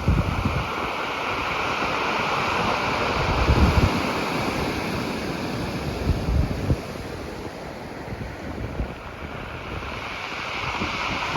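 Sea waves washing and breaking against rocks at a sea wall, the surf swelling and fading. Wind buffets the microphone in low gusts, strongest at the start, about four seconds in and again a couple of seconds later.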